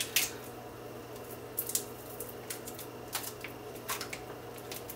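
Plastic pouch of beer-kit syrup crinkling and crackling as it is rolled up and squeezed by hand, with scattered small clicks, over a faint steady hum.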